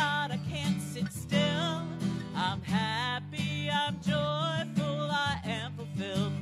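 Live song performed by singers with a strummed acoustic guitar: a sung melody with held, wavering notes over the guitar chords.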